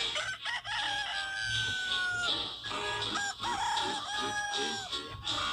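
A rooster crowing: long drawn-out crows, the first starting about a second in and a second one in the latter half, with shorter calls between them.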